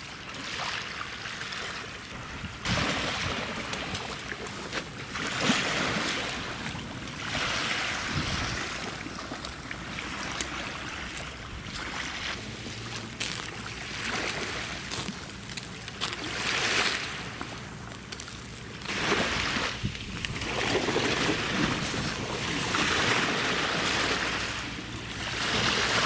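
Thick sirloin steak sizzling on a wire grill over charcoal, a steady hiss that swells and fades, with gusts of wind rumbling on the microphone every few seconds.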